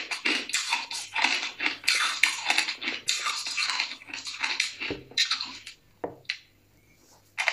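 Close-miked chewing of shaved ice and freezer frost: a rapid, uneven crunching that stops about six seconds in, followed by a couple of sharp clicks and then near quiet.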